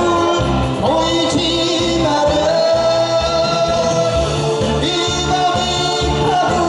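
Male singer singing a ballad into a handheld microphone over a backing track with a steady low beat, holding long notes.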